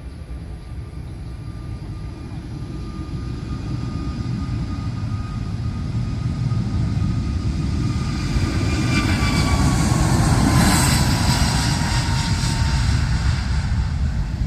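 Jet airliner passing by, its engine noise growing louder to a peak about ten seconds in, with a whine that drops in pitch as it goes past.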